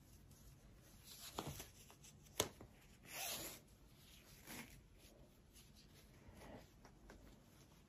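Faint rustling and rubbing as a fabric headband is pulled over braided hair, with a sharp click about two and a half seconds in and a short ripping sound just after.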